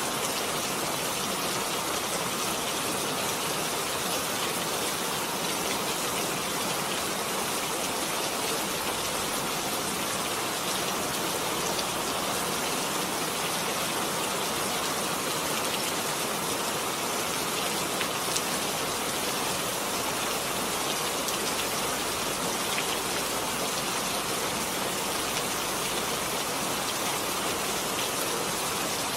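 Steady rain falling and pattering on surfaces, an even hiss of many drops with a few louder drop ticks scattered through it.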